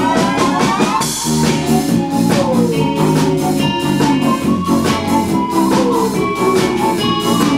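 A band playing an instrumental: drum kit with a steady beat and a cymbal crash about a second in, electric bass, and synthesizer or organ keyboards with notes that slide up and down in pitch.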